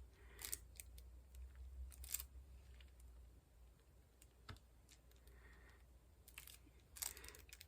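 Faint, scattered clicks and light taps of a diamond painting pen picking up square resin drills and pressing them onto the canvas, over a low steady hum.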